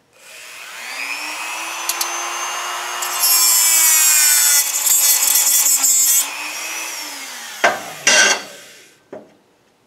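Dremel rotary tool spinning up to a steady whine, then its cut-off wheel grinding a sharp protruding point off a metal canning-jar lid for about three seconds with a harsh hiss. The motor then winds down, and a short knock follows near the end.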